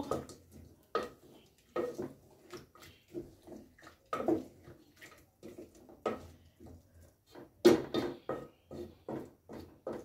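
Wooden spoon stirring thick chicken stew in a metal pot: a string of short, wet, squelching strokes with light scrapes against the pot, about two a second, loudest near the end.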